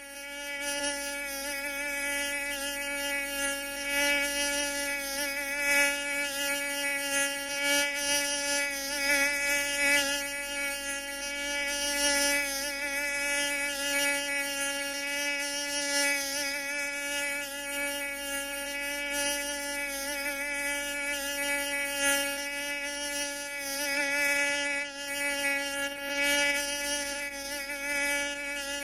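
Mosquito in flight, its wingbeats making a steady high-pitched whine with many overtones that wavers slightly in pitch and loudness.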